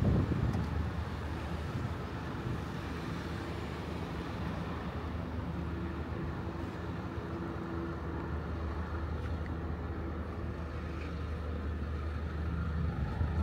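A motor vehicle's engine running with a steady, even hum over street traffic noise. A gust of wind hits the microphone right at the start.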